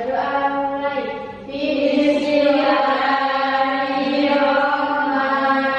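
Voices reciting a closing prayer in a drawn-out, chant-like unison, with a short break about a second and a half in.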